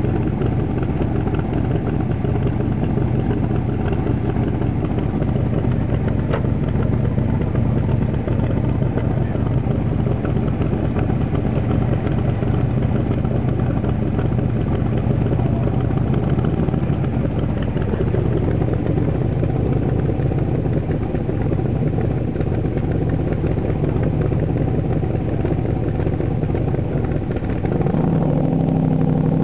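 Kirkham AC Cobra 427's V8 idling steadily through its side-exit exhaust pipes. The sound grows a little louder and deeper near the end.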